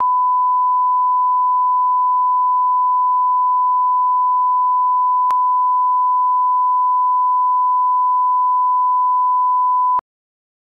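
Broadcast line-up test tone, one steady pure beep at constant pitch played with colour bars, with a faint click about halfway through. It cuts off suddenly near the end.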